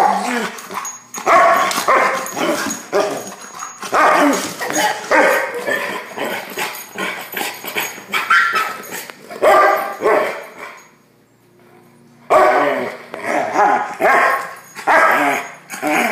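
A dog barking over and over in rapid, drawn-out barks, with a brief pause about two-thirds of the way through.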